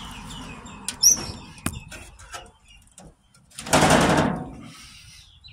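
Painted metal under-tray drawer moving on small wheels in its steel channel: a few sharp knocks in the first two seconds, then about a second of loud rolling, rushing noise near the middle as it slides.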